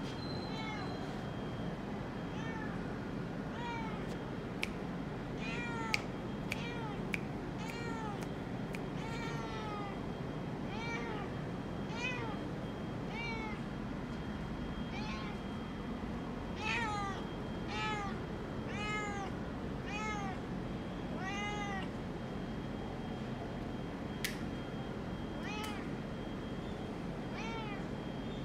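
Domestic cat meowing over and over, roughly one short meow a second, each rising then falling in pitch, louder for a stretch past the middle. A few sharp clicks fall between the meows.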